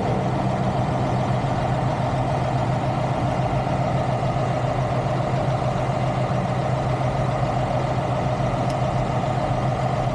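Heavy semi-truck diesel engine idling steadily.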